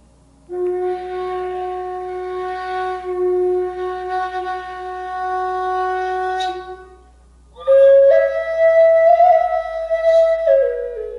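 End-blown wooden flute playing slow, breathy long notes: one low note held for about six seconds, then after a short break for breath a higher phrase that steps up and drops back down near the end.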